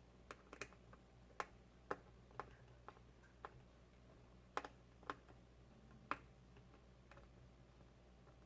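Small sharp clicks of a screwdriver working the corner screws out of a laptop screen panel, about a dozen at uneven intervals, stopping near the end.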